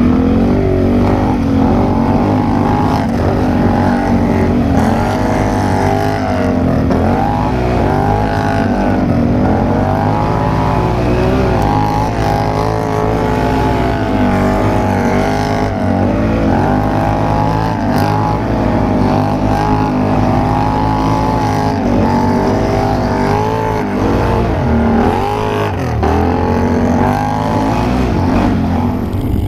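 ATV engines revving up and down again and again, their pitch rising and falling every second or two over a steady low rumble.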